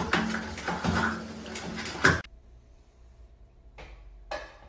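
A small white terrier growling as it pulls at a toilet paper roll, with paper tearing and knocking, for about two seconds. It cuts off suddenly, leaving a much quieter room with a couple of faint rustles.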